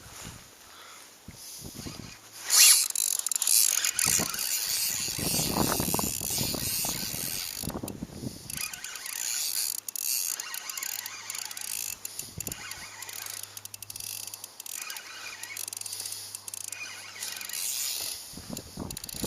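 A fishing reel being wound with a whirring, ratcheting mechanical sound. It starts abruptly about two and a half seconds in and carries on, rising and falling in level.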